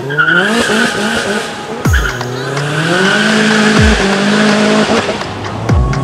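Modified cars' engines revving and accelerating away, rising in pitch, over music with a deep bass hit that drops in pitch about every two seconds.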